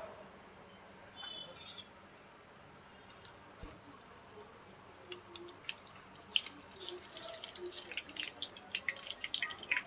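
A roti frying in hot desi ghee in a small kadhai: scattered crackles and pops, sparse at first and growing denser toward the end as the ghee bubbles around it.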